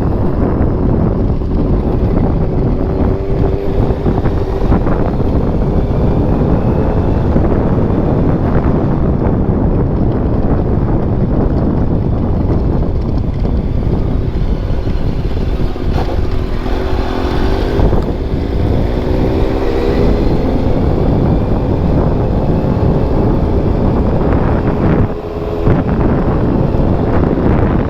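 Motorcycle engine running while under way, nearly buried under heavy wind rushing over the microphone. The engine note rises and falls with the throttle, and there is a brief drop in level near the end.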